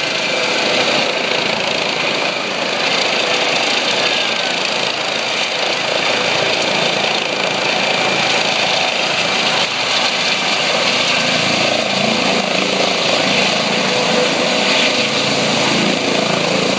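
Helicopter's turbine engine and rotor running loud and steady as it comes in to land, with thin steady whining tones over the rotor noise.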